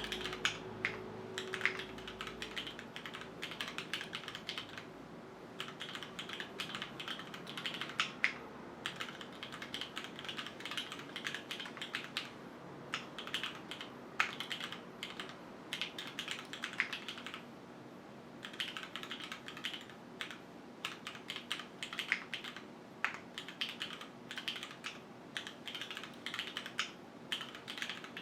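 Typing on a QwertyKeys Neo 65 gasket-mount mechanical keyboard with linear Cherry MX Black HyperGlide switches, an aluminium plate and no foam: fast runs of keystroke clacks with brief pauses about five seconds in and again near eighteen seconds.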